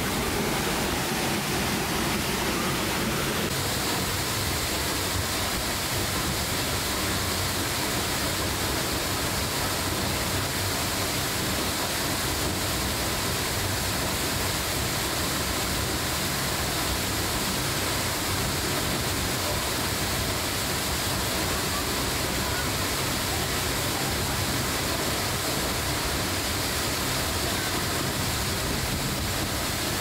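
Tall waterfall plunging into its pool: a steady, even rush of falling water.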